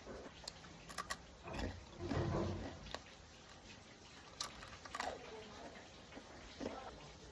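A person eating noodles close to the microphone: irregular slurping and chewing, the longest slurp about two seconds in, with a few sharp clicks about one second in and again near five seconds.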